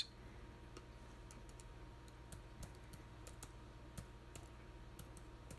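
Faint typing on a computer keyboard: scattered, irregular key clicks as a word is typed out.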